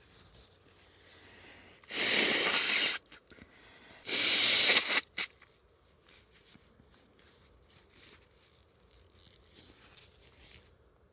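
A person blowing their nose hard twice, each blow a steady, noisy blast of about a second, the two about two seconds apart, with a brief click right after the second.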